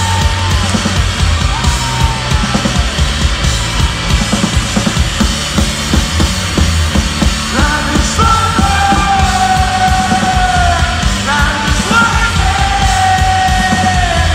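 Live rock band playing loudly, recorded from within the crowd: a steady drumbeat with bass and electric guitars, and a held melody line joins about halfway through.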